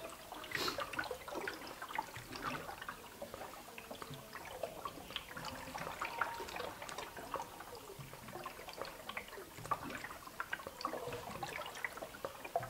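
Water gravity-feeding from a reservoir through a clear hose into a PVC pipe trough, trickling and gurgling with many small irregular pops as air bubbles glug back up the hose in exchange for the water: the self-levelling waterer is filling its trough.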